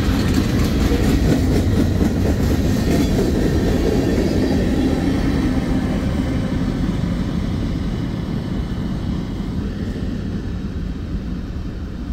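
Amtrak train rolling along the rails with a steady low rumble that slowly fades as it moves away.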